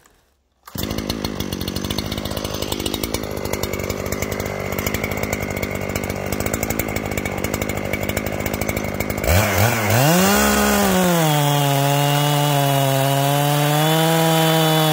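Gas chainsaw in a rail-guided chainsaw mill idling with a fast rattle, then opened to full throttle about nine seconds in, its pitch shooting up and settling a little lower as it bites into the log and rips steadily along it.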